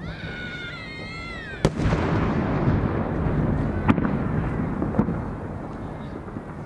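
Large aerial firework shell (a 10-gō shell) bursting: one loud sharp boom about a second and a half in, followed by a long rumbling echo and two smaller cracks a couple of seconds later. Before the boom, a wavering high whistle.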